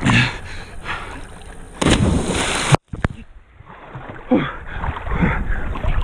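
A loud splash about two seconds in as a cliff jumper hits the river, cutting off suddenly. After it comes water lapping and gurgling around a camera held at the river's surface.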